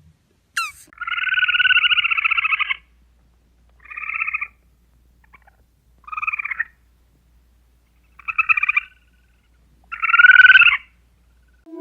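A brief falling whistle, then an animal giving five trilled, pulsing calls with pauses between them; the first and last calls are the longest and loudest.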